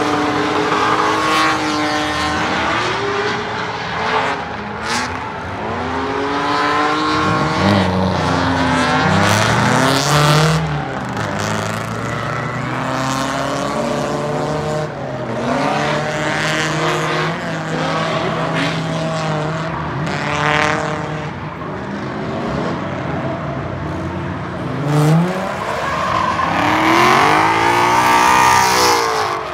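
Straight-piped Pontiac G8 GT V8 revving and accelerating through gears, its pitch climbing and dropping again and again. It holds a steady drone for several seconds in the middle and swells up and back down near the end.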